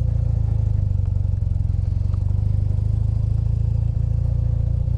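BMW R80's 800 cc flat-twin boxer engine running steadily at an even, unchanging pace, with no revving.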